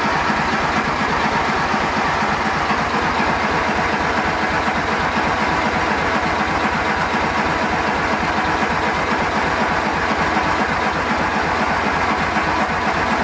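A petrol car engine being cranked by its starter motor with no choke, turning over steadily in an even rhythmic chug for over ten seconds without firing, then cutting off.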